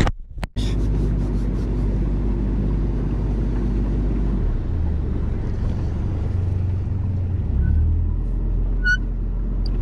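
Boat motor running steadily, starting abruptly about half a second in, its low drone shifting in pitch about halfway through. A brief high-pitched tone sounds near the end.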